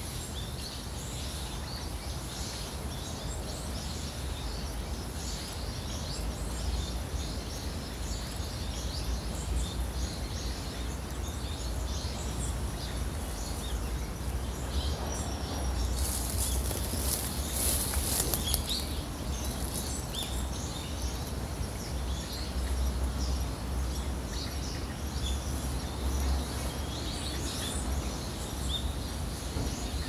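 Small forest waterfall rushing steadily over rocks, with small birds chirping in short, scattered calls throughout. A high hiss rises over it for a couple of seconds about halfway through.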